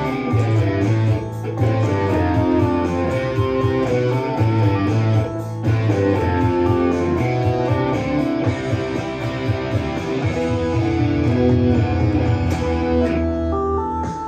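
Stratocaster-style electric guitar played along over a full-band rock track with drums and bass; the track's hi-hat ticks evenly throughout, with two brief breaks in the music.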